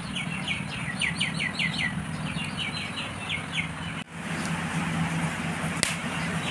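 A small bird chirping in two quick runs of short falling notes, over a steady low hum. The sound breaks off abruptly about four seconds in, and a steady hiss with the hum carries on.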